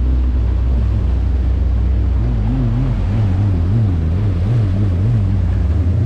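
Personal watercraft engines running at low speed close by, a steady low hum whose pitch wavers up and down rapidly, over the rush of the wake.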